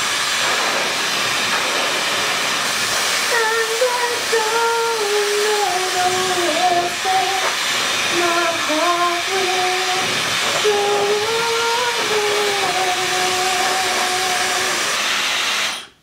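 Dyson Supersonic hair dryer blowing, a steady loud rush of air, with a woman singing quietly over it from about three seconds in. The dryer stops just before the end.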